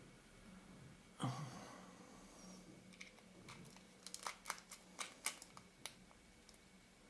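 Small handling sounds of lens-repair work: a soft knock about a second in, then a quick run of light, sharp clicks and taps as small tools and lens parts are handled.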